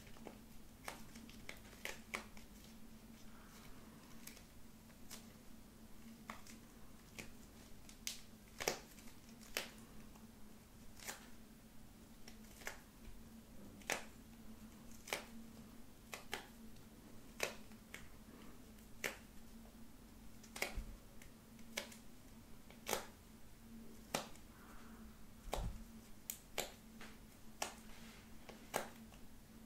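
Sticky clay-like slime being torn apart by hand into small pieces: a string of sharp little clicks and pops at irregular intervals, about one a second, with a faint steady hum underneath.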